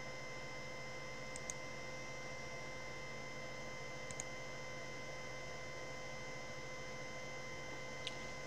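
Computer mouse clicks, faint and in quick pairs, three times, over a steady electrical hum with faint whining tones.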